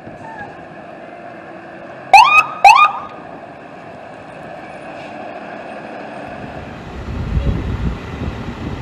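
Two short rising siren whoops from a fire apparatus, about half a second apart and much the loudest sounds, over a steady hum. From about six seconds in, the low engine rumble of a fire truck at the station bay door takes over.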